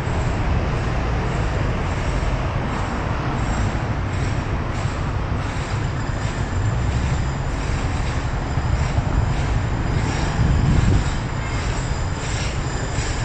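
Steady city road traffic, with cars and buses passing. About ten seconds in, one vehicle passes louder.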